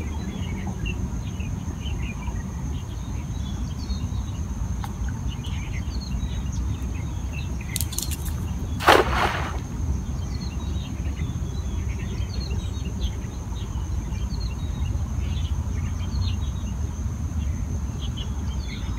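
A hand-thrown cast net splashes onto shallow ditch water in one short rushing burst about halfway through. Underneath are a steady high insect drone, scattered bird chirps and a low rumble.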